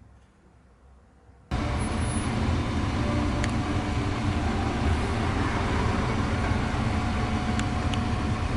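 Steady rumble and hiss of motor vehicle noise, starting suddenly about a second and a half in after near quiet.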